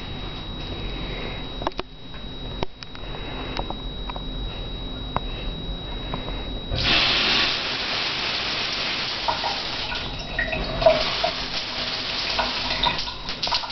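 A few light clicks, then about halfway through a shower is turned on and water runs with a steady hiss.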